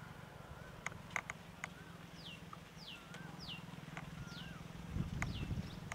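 A bird calling in a run of short, high, downward-sliding whistles, about two a second from about two seconds in, with a few lower wavering whistles between. Several sharp clicks come in the first two seconds over a steady low hum, and a low rumble rises near the end.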